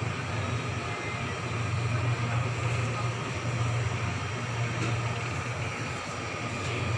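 Steady low hum with an even hiss: a convenience store's background noise.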